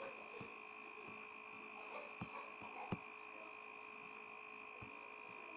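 Faint steady electrical hum with a high whine, with a few short computer mouse clicks about two, three and five seconds in.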